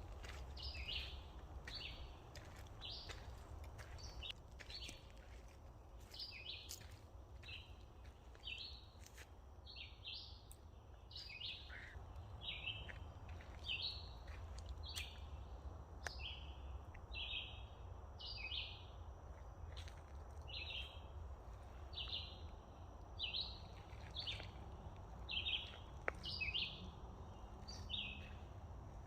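A bird calling over and over, a short high chirp about once a second, varying a little in pitch, over a low steady rumble.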